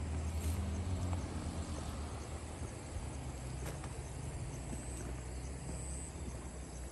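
Insects trilling steadily in the hillside vegetation over a low, steady rumble.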